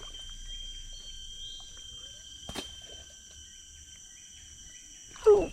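Steady high-pitched chirring of swamp insects, with a single click about two and a half seconds in. Near the end, a short loud sound that slides down in pitch.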